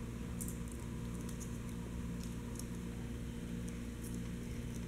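Chihuahua gnawing a rawhide bone: faint, irregular clicks and crunches of teeth on the chew, over a steady low hum.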